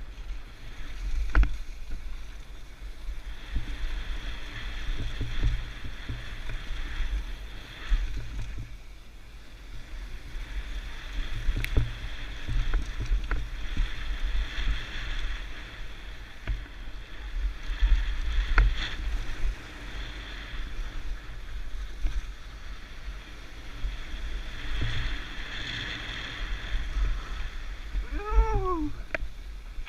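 Mountain bike descending a bike-park trail: tyre noise on dirt rising and falling in waves, over low wind rumble on the microphone, with sharp knocks from bumps. Near the end there is a short falling squeal.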